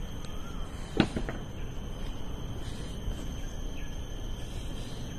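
Forest ambience: a steady high insect drone with a faint bird chirp, under low rustling noise from walking and handling the phone. One sharp knock about a second in.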